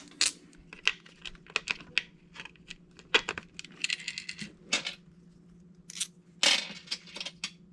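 Small metal screws, washers and a hex driver clinking and clicking as they are handled while the bar's screws are changed, a scattered run of sharp ticks at uneven intervals.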